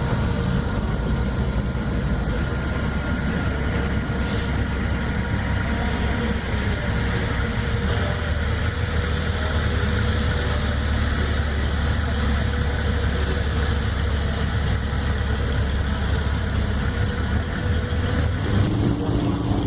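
Classic car engine idling steadily, with a continuous low rumble of firing pulses.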